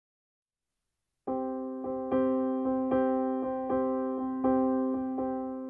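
Soft piano-style keyboard music: after about a second of silence, a slow run of single notes starts, each struck and ringing out as it fades.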